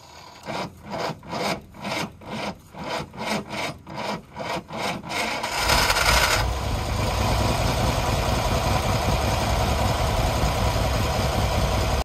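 GAZ-66 truck's engine turning over slowly on the starter, about two or three strokes a second. It catches about five and a half seconds in with a short loud burst, then settles into a steady run.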